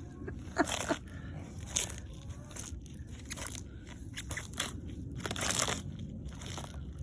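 An animal chomping on romaine lettuce, with crisp crunching bites coming irregularly about once a second.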